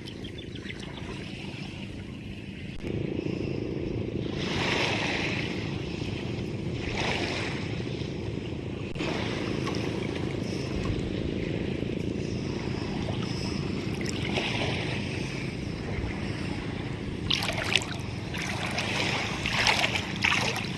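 Steady wash of sea water with wind on the microphone, swelling into louder rushes of water several times, most strongly near the end.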